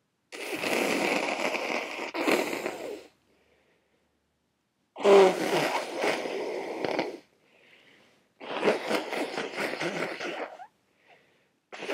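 A person congested with a head cold blowing their nose, loud and wet: three long blows of two to three seconds each, the first in two pushes, with another starting at the very end.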